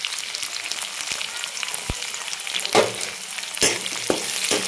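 Garlic, green chillies and curry leaves sizzling in hot oil in a metal kadhai, a steady crackle. In the second half chopped onion goes in and a spatula scrapes and stirs against the pan a few times, each stroke louder than the sizzle.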